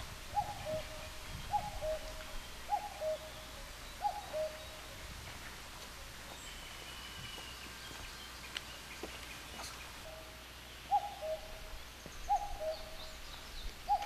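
Common cuckoo calling its two-note "cuck-oo", the second note a little lower than the first. It gives four calls about a second and a quarter apart, pauses for about six seconds, then calls three more times near the end. Faint high chirps of other small birds sound in the pause.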